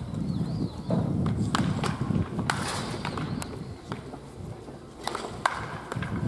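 Baseball bats hitting balls off batting tees: a series of sharp cracks from several batters, the loudest about five and a half seconds in.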